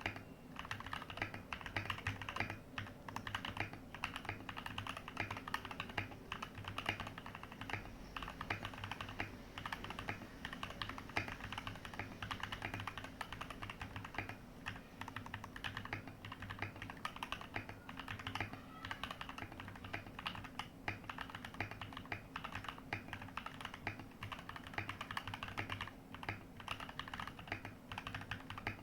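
Continuous typing on a TM680 mechanical keyboard with factory-lubed Gateron Pro Yellow linear switches: a dense, irregular run of keystroke clacks, many per second. The case is filled with EVA foam and the PCB is taped, damping the sound.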